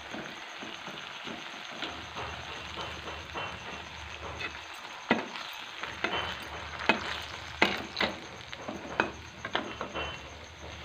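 Oil sizzling steadily as moong dal fritters deep-fry in a metal kadai, with sharp clinks and knocks of a metal slotted spoon against the pan, several of them in the second half.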